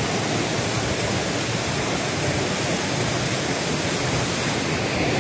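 Floodwater rushing steadily, a fast torrent of rainwater running off the hillside after a night of heavy rain.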